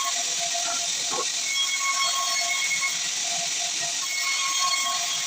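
Sawmill saw cutting through an acacia log: a steady hissing rush with a high whine that comes and goes every second or so.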